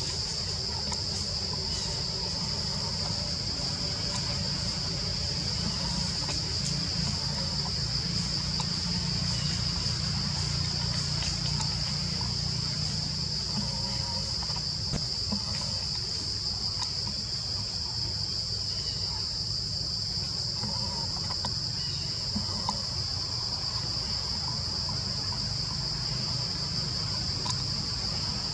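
Steady, high-pitched insect chorus droning without a break, over a low background rumble.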